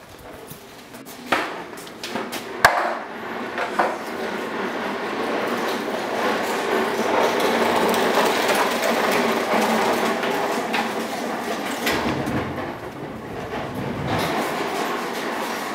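A few sharp knocks, then from about four seconds in a steady, loud mechanical rumble.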